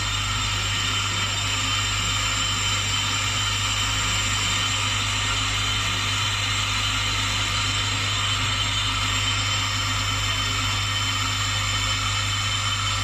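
Brake lathe running steadily as its cutting tools skim the rusty faces of a brake disc, making a constant hum and whine that does not change.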